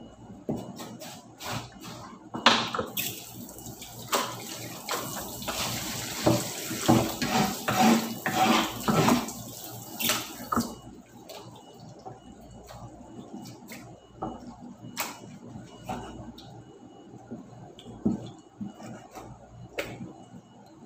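Kitchen sink tap running into the sink for about eight seconds, then shut off, while dishes are washed. Short knocks and clinks of dishware being handled in the sink come throughout.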